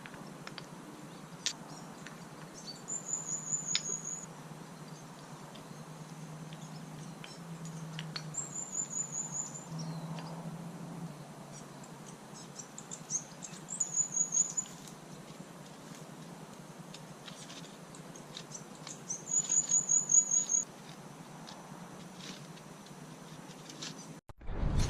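A small animal's high, rapid chirping call, a quick run of short notes lasting about a second, repeated four times about five seconds apart, with faint scattered ticks between.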